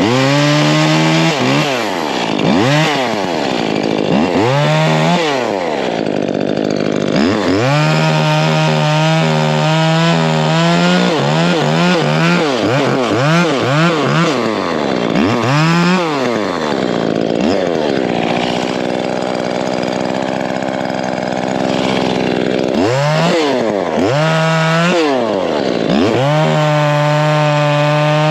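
Petrol chainsaw revving over and over, the throttle squeezed and let off, held at full throttle for a few seconds at a time while cutting branches (about eight to eleven seconds in and again near the end), and dropping to idle for a spell around the middle.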